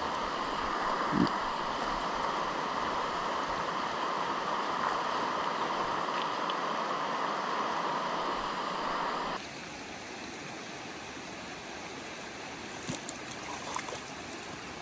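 Rocky river's current rushing steadily over the stones; about nine seconds in it drops suddenly to a quieter rush, and near the end a few small splashes come as a hooked rainbow trout thrashes at the water's edge.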